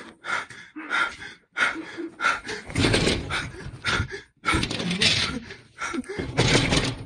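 A person panting and gasping in short quick breaths while moving, with loud rumbling rushes of phone-handling noise in the second half as the camera is jostled.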